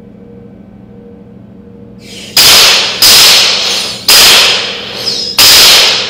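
Four loud shots from servo-triggered toy cap-gun revolvers. The first comes about two and a half seconds in and the rest follow at uneven gaps of half a second to a second. Each is a sharp crack that rings off for about half a second.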